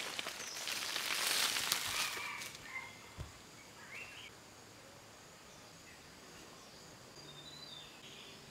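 Rustling, crunching footsteps on loose dry soil and leaves for the first two seconds or so, then a single low thud about three seconds in as the woven vine basket is set down. After that, quiet forest background with a few short bird chirps.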